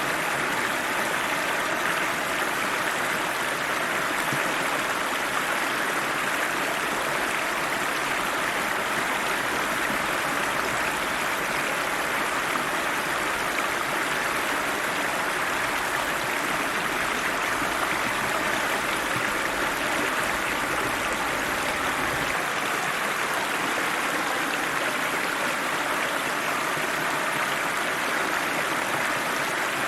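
River water rushing steadily, an even, unbroken flow.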